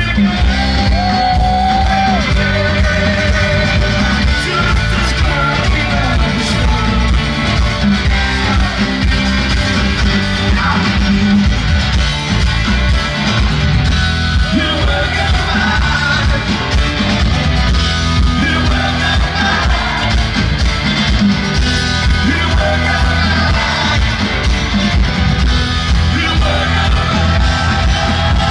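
Live rock band playing loud and without a break: acoustic and electric guitars, bass and drums, with singing.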